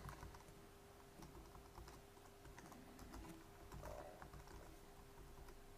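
Faint, irregular key presses on a computer keyboard as a password is typed, over a faint steady hum.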